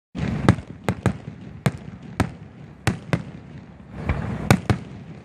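Aerial fireworks shells bursting: about ten sharp bangs, some in quick pairs, with a low rumble carrying on between them.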